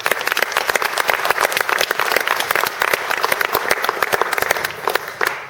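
Audience applauding: dense, continuous clapping that starts as the music ends and dies away near the end.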